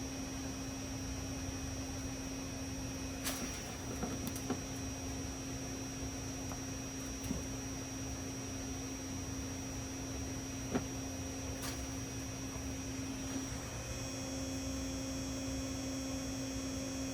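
Steady electronic hum from a car audio amplifier and speaker setup running a test signal during gain setting, with a few faint clicks along the way.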